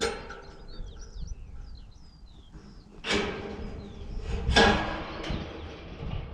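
Small birds chirping, broken by clattering bangs about three seconds in and again, loudest, about a second and a half later.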